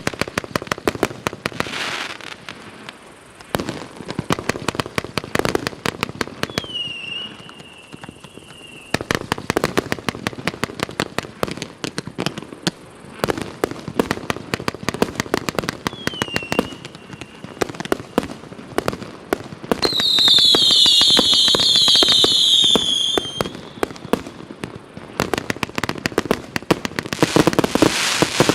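FP-B116 'Winter Evening' firework firing: a dense run of crackling pops throughout, with short whistles about seven and sixteen seconds in. A loud cluster of whistles lasts about three seconds from twenty seconds in, and a loud crackling burst comes near the end.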